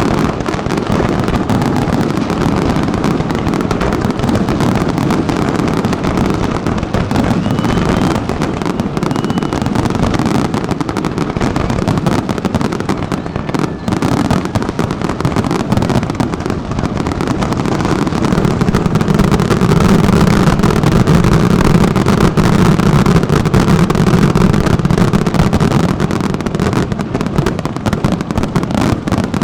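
Aerial fireworks display: a dense, continuous barrage of shell bursts and crackle with deep booms. It grows louder past the middle and eases slightly near the end.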